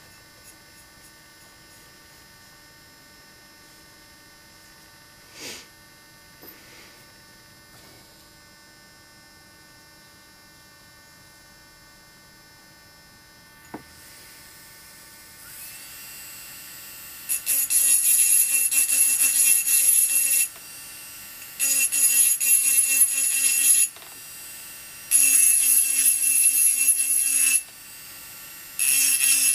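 A faint steady hum for about the first half. Then a handheld rotary engraving tool's motor starts, and its small burr grinds into the glass in loud spells of two to three seconds, a high whine with hiss, three times, with a fourth starting near the end. The motor keeps running more quietly between spells.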